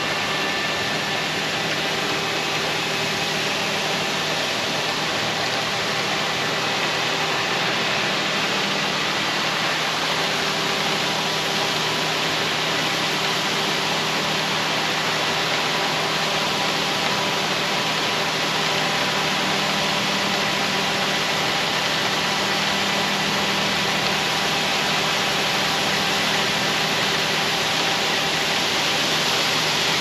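A John Deere 8310R tractor's engine running steadily as it drives the grain cart's unloading auger, under an even hiss.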